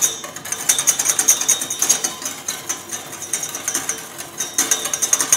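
Wire whisk beating fast against a stainless steel bowl, a continuous metallic rattle of quick clicks, as olive oil is whisked into balsamic vinegar to emulsify a vinaigrette.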